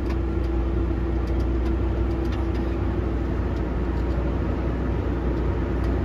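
Grain cart tractor engine running steadily, heard from inside the cab as a low drone. A steady hum in it fades out about halfway through.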